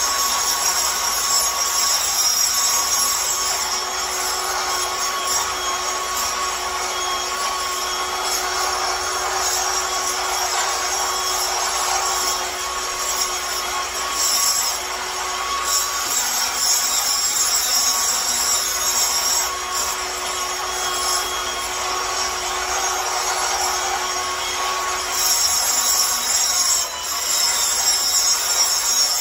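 Electric angle grinder running continuously against a concrete floor, grinding old carpet-glue residue off the slab, with small dips in level as it is moved over the surface.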